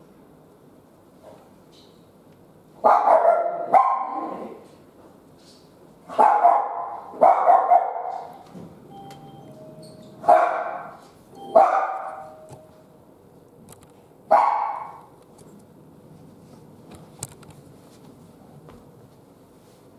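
A dog barking about seven times, the barks coming mostly in twos over about twelve seconds.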